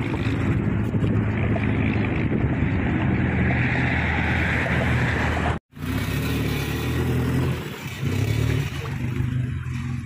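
An engine running steadily at a low pitch. The sound drops out for an instant a little past halfway, then the engine carries on less evenly.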